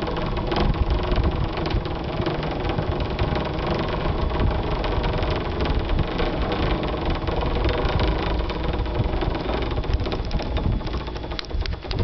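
Pulley wheels of a cable car rolling along its steel cable as the car is hauled across the river, a steady rumble with a faint hum.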